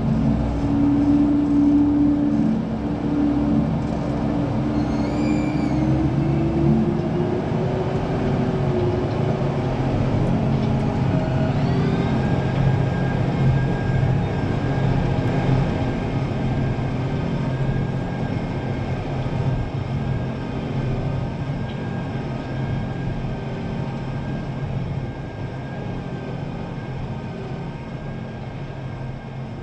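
Tractor engine running steadily under load while pulling a power harrow and seed drill, heard from the back of the cab. Its pitch climbs slowly over the first several seconds, then holds, and the sound fades gradually toward the end.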